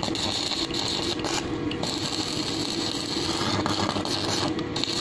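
Electric arc welding with an inverter welder set to 150 A: the arc crackles steadily as a weld is laid on steel.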